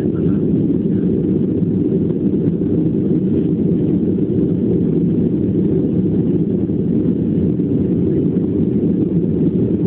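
Airliner cabin noise in flight: a loud, steady, deep rush of engine and airflow heard from inside the cabin.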